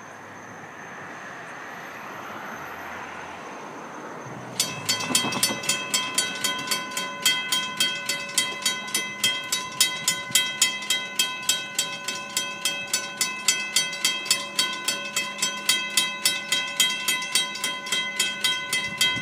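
Railroad grade-crossing bell starts about four and a half seconds in and rings rapidly and steadily: the crossing signals have activated for an approaching train. Before it, a faint, slowly rising rumble of the train approaching.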